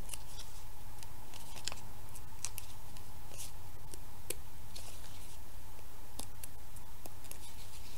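Faint paper rustling and small ticks as the thin backing is peeled off mini foam adhesive dots and cardstock layers are handled, over a steady low hum.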